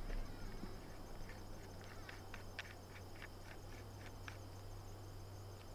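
Faint, steady insect chirping with a fine rapid pulse, with a scatter of light short clicks from about a second in until past the fourth second.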